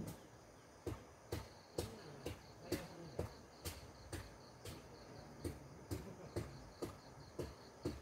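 Insects chirring steadily in the background, with a short, sharp call repeating about twice a second.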